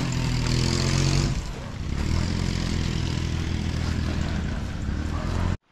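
An engine running steadily at a constant speed, its sound cutting off suddenly near the end.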